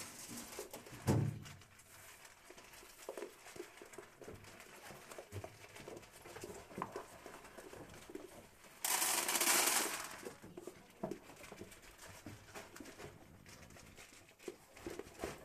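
Goats eating corn kernels from a round pan: scattered small knocks and scrapes of muzzles and hooves in the pan, with a louder knock about a second in. Near the middle comes a loud rustling hiss lasting about a second.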